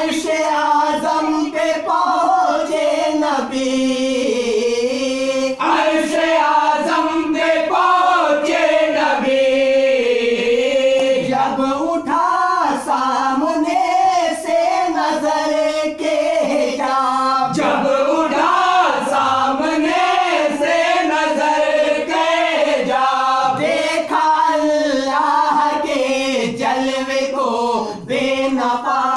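Naat, an Urdu devotional song, sung by voices without instruments: long, wavering melodic lines held continuously with no clear words.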